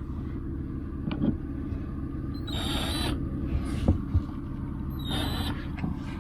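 A steady low rumble, with two short scraping noises and a few light knocks on top of it.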